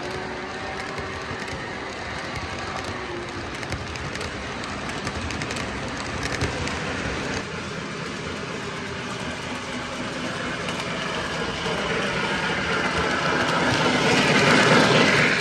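Model train rolling along the layout's track with a steady rumble and wheel clatter, growing louder near the end as the streamlined steam locomotive passes close by.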